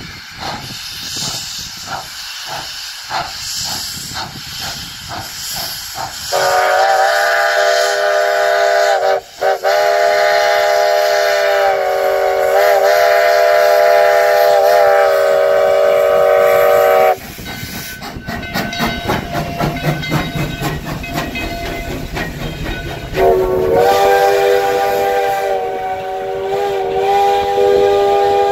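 Virginia & Truckee No. 29, a 2-8-0 steam locomotive, working past with rhythmic exhaust chuffs and steam hiss. Its whistle then blows a long blast of about ten seconds, several notes sounding at once. The wheels clatter by, and the whistle sounds again for the last few seconds.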